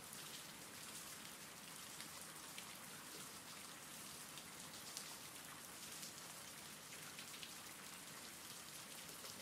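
Faint, steady rain from a rain-sounds ambience track: an even hiss of rainfall with scattered light drop ticks.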